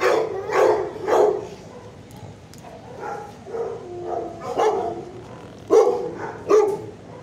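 Dog barking: three quick barks about half a second apart, then softer yelps, then a few more loud barks in the last few seconds.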